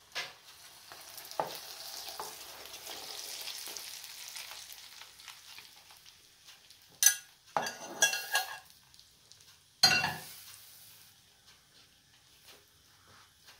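Metal spoon stirring and scraping moist bulgur in a plastic bowl, a steady grainy hiss, followed about halfway through by a few sharp knocks of the spoon against the bowl and pan as a fried egg is pushed in.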